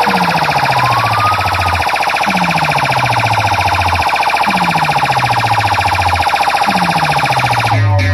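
Siren effect played loud over a large DJ sound-box system: a fast warbling siren tone, with a deep bass sweep falling in pitch about every two seconds. Just before the end it cuts over to a distorted, guitar-led music track.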